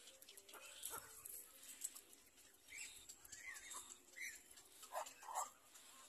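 Black-crowned night heron chicks in the nest giving short begging calls as the adult bends down to them: a string of brief calls through the middle, with a louder pair near the end.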